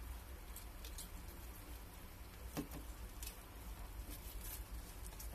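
Horsfield tortoises biting and tearing dandelion leaves and shuffling over wood-chip bedding: faint, scattered crunches and clicks, with one louder knock about two and a half seconds in.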